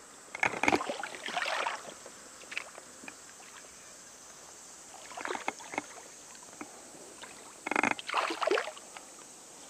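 A hooked bass splashing and thrashing at the water's surface in three short bursts, about a second in, around five seconds and near eight seconds, with scattered sharp clicks from the baitcasting reel and rod as the fish is played in.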